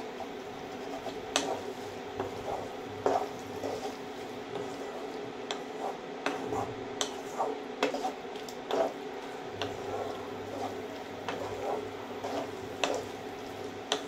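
Spatula stirring and scraping a thick mushroom and pea masala as it is stir-fried in a nonstick kadhai. Irregular taps and clicks of the spatula on the pan come over a steady low hum.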